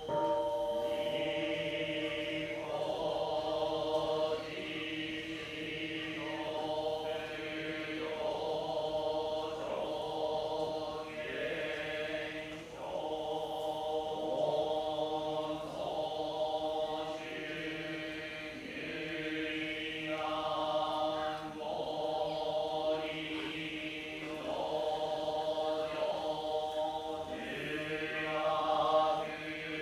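Japanese Buddhist monks chanting together in a slow, melodic chant of sung phrases over steady held tones.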